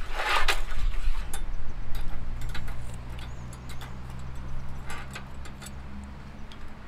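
Hot water poured briefly from a kettle into a metal cup, then a spoon clicking against the cup now and then as instant soup is stirred.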